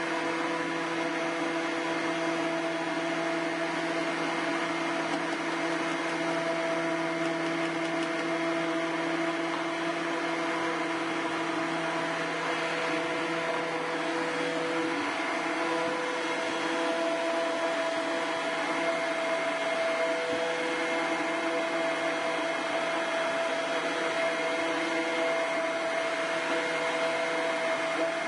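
Stick blender running steadily in a large stainless steel pot of soap batter, mixing in freshly added clay at light trace: a continuous motor hum and whine over the churning, its tone shifting a little about halfway through.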